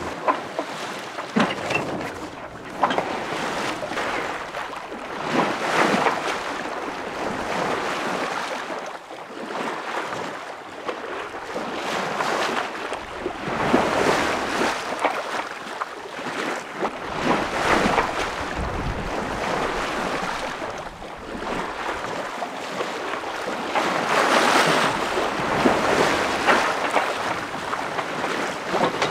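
Water washing and splashing along a sailboat's hull as it sails, the rush swelling and fading every few seconds, with wind buffeting the microphone.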